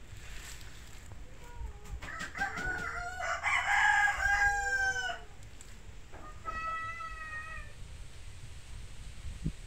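Rooster crowing: one long, loud crow that falls in pitch near its end, then a second, shorter and quieter crow a second or so later.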